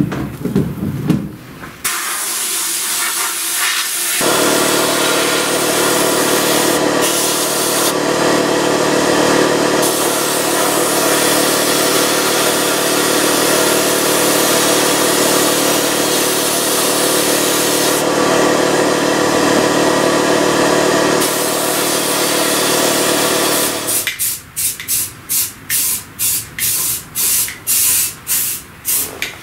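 Harbor Freight sandblast cabinet in use: a loud, steady hiss of air and abrasive from the blast gun starting about two seconds in, with a steady hum joining a couple of seconds later, for about twenty seconds. Near the end it gives way to an aerosol spray-paint can sprayed in short hisses, about two a second.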